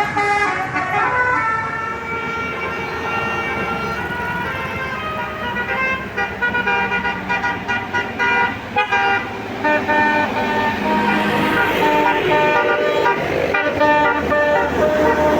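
Bus telolet basuri horn playing a tune of stepped, flute-like notes, with quick repeated notes in the middle and longer held notes near the end, over vehicle engine noise.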